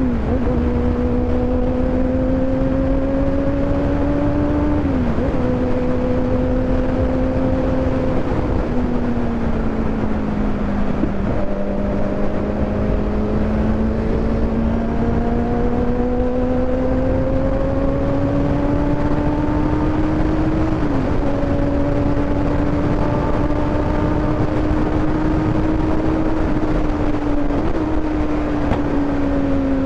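Kawasaki motorcycle engine pulling under load while riding. Its pitch climbs steadily and dips sharply at each of several gear changes, sagging once as the throttle eases, over a low rumble of wind.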